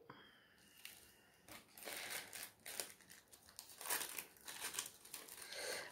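Small plastic zip-lock bags crinkling faintly as they are handled: a string of soft rustles and crackles starting about a second and a half in.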